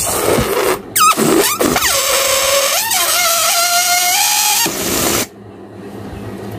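Inflated latex balloon deflating: air rushing out through its stretched neck with a squealing whine that wavers and glides up and down in pitch. It cuts off suddenly about five seconds in.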